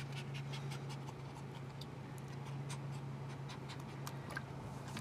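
A dehydrated puppy lapping water from a plastic bowl: a quick, irregular run of small wet clicks. A steady low hum runs underneath.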